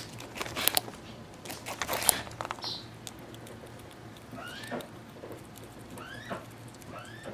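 Squirrel gnawing and scraping at a pumpkin: a quick run of sharp, crisp clicks in the first two seconds, then softer, sparser nibbling.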